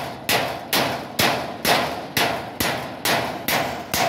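Hammer blows in a steady rhythm of about two a second, around ten strokes, each ringing out briefly; they stop near the end.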